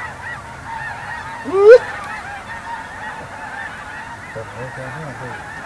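A large flock of waterfowl calling, many short overlapping calls running on without a break. About a second and a half in, one much louder call rises sharply in pitch.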